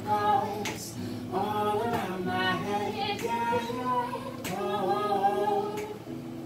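A woman singing a song to a strummed acoustic guitar, with a man's voice singing along with her.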